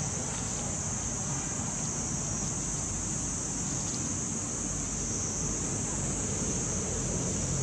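Steady high-pitched drone of a cicada chorus, unbroken, over a low outdoor rumble.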